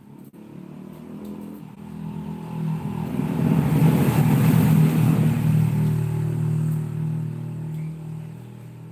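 A motor vehicle engine passing by, growing louder to a peak about halfway through and then fading away.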